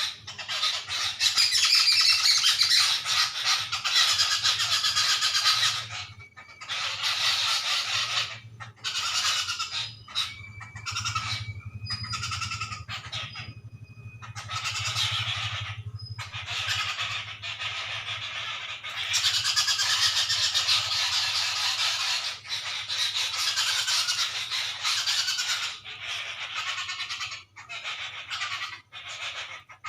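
Birds chattering and squawking in noisy bouts of a few seconds with short gaps between them, with a few short clear whistle notes in the middle.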